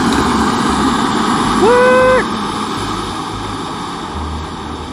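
Small gas canister camp stove lit with a sudden whoosh, then its burner running with a steady roar, quieter from about two seconds in as the flame burns lower. A short pitched tone rises and holds for about half a second, just before the burner quietens.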